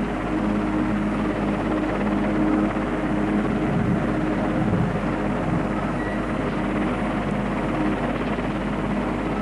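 Twin-turbine Westland Wessex helicopter flying with a heavy underslung load, its rotor and turbines running steadily, over a constant low hum.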